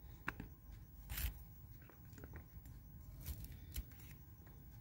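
Flat bean (sheem) pods being sliced on a bonti, a curved upright iron blade: a few faint, crisp cuts at irregular intervals as the pods are pushed through the edge.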